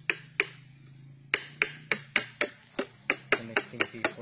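Sharp knocks of a blade chopping into a length of green bamboo: two strikes, then a quick run of strokes at about four a second from about a second and a half in.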